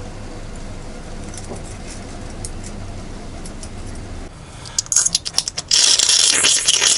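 A low steady hum, then a few sharp clicks and, about six seconds in, a loud clatter and rustle of parts being handled.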